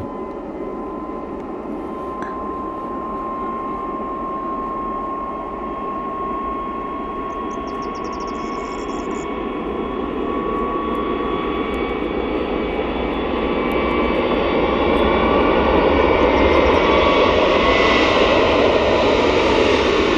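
Airbus A320neo-family airliner's jet engines at takeoff power as the plane accelerates down the runway: a steady rush with a thin whine. It grows louder through the second half as the plane draws near and passes.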